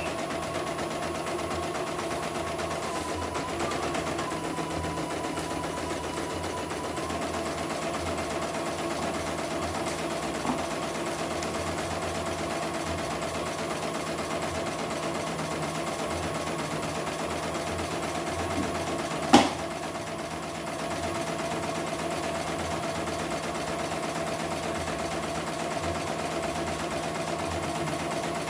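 CNY E900 portable computerised embroidery machine stitching a design, running steadily, with one sharp click about two-thirds of the way through.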